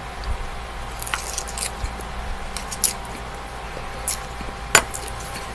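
A person chewing a mouthful of spinach salad: about half a dozen scattered short crunches and mouth clicks, the sharpest near the end, over a faint steady hum.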